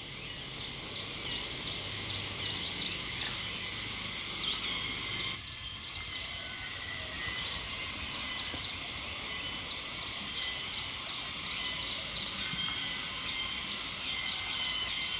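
Birds chirping in quick, repeated short calls over a steady high-pitched hum.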